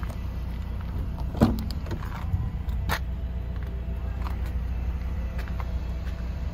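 Rear door of a Chevrolet Equinox being opened: a loud latch click with a dull thud about a second and a half in, then a sharper click about three seconds in, over a steady low rumble.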